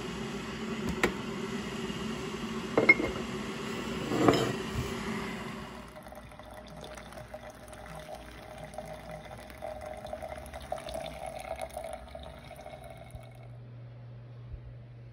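A few sharp clinks and taps over a steady hum. Then, from about six seconds in, water is poured from a kettle onto coffee grounds in a paper pour-over filter, a steady trickling pour that stops near the end.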